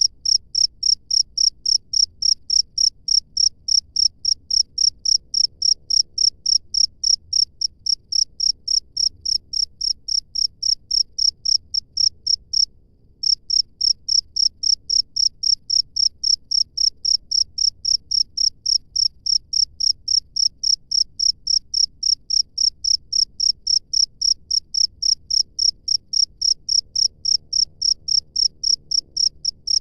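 A cricket chirping in a steady, evenly spaced train of high chirps, a few per second, with one brief break partway through.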